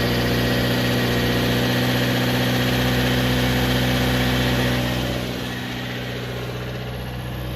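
Subaru Sambar minitruck engine idling steadily while still warming up. About five seconds in it becomes quieter and duller.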